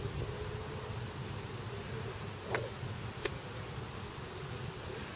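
A golf iron strikes a ball off the turf: a single sharp click about two and a half seconds in, followed by a fainter click under a second later. A faint steady hum runs underneath.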